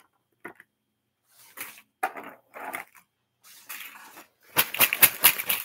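Handling noises: scattered rustles and knocks as things are moved about on and around the table, then a burst of rapid clattering and rustling near the end.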